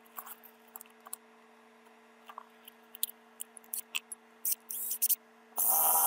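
Small clicks and handling knocks from tools being handled, then about five and a half seconds in a cordless drill with a long bit starts up and runs loudly, drilling into the wall framing.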